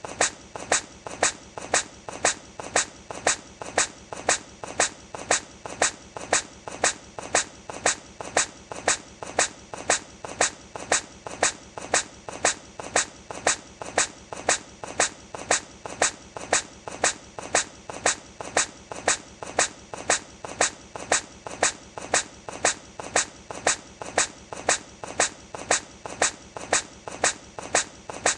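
Hedgehog sneezing over and over: short, sharp huffy sneezes about two a second, evenly repeated as a loop.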